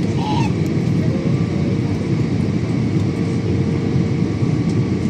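Steady low roar inside an airliner's passenger cabin during descent: engine and airflow noise, with a thin steady hum above it.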